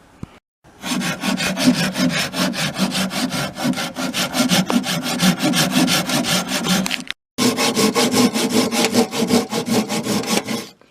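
Hand saw cutting through wood in quick, even back-and-forth strokes, about four or five a second. The strokes break off for a moment about seven seconds in and then resume.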